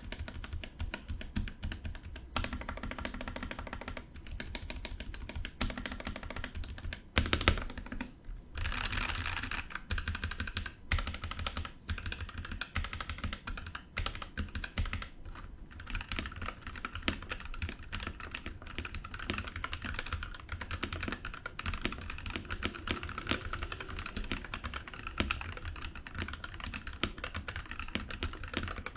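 Fast, continuous typing on a mechanical keyboard fitted with PBT Cherry-profile keycaps, a dense patter of keystroke clicks with a couple of brief pauses.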